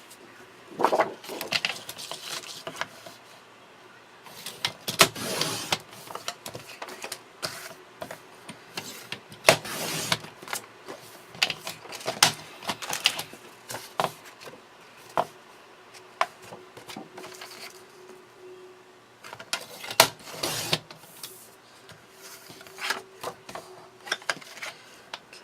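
Paper crafting at a work table: paper sliding and rustling, with irregular clicks and taps from handling card stock and tools, over a faint steady hum.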